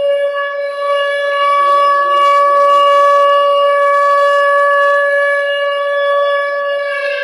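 Tornado siren sound effect in its wail, holding one steady high pitch and starting to fall near the end.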